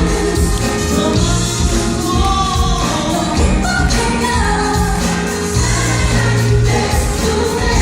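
A live band playing a pop ballad, with sung vocals over bass and a steady beat.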